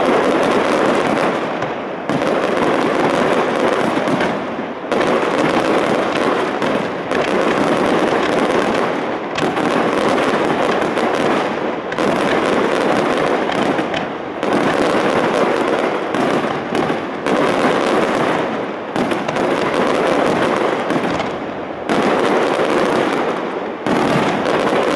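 Fireworks display: aerial shells bursting in rapid, continuous bangs and crackling. The sound comes in waves that restart sharply every two to three seconds.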